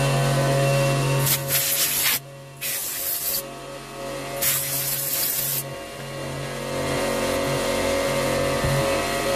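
Three hissing sprays of about a second each, cleaning the guide bar of a pole pruner's cutting head. A steady low hum runs through the first second.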